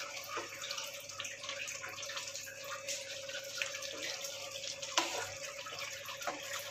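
Thick egg korma gravy simmering and bubbling in a pan with small pops, while a wooden spatula stirs it and taps the pan now and then.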